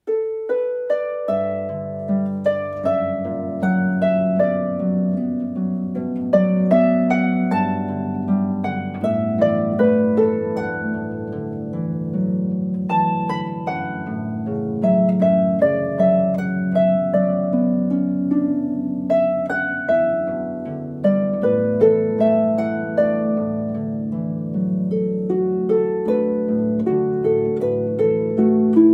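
Background music: a melody of plucked notes, each fading after it is struck, over a sustained lower accompaniment.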